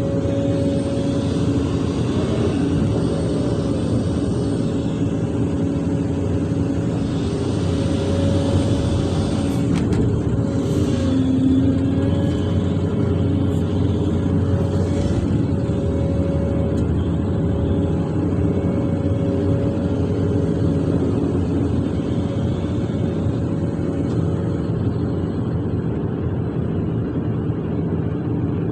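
Large hydraulic excavator's diesel engine running steadily with a hydraulic whine, heard from inside the operator's cab. A few faint clicks come about ten and fifteen seconds in.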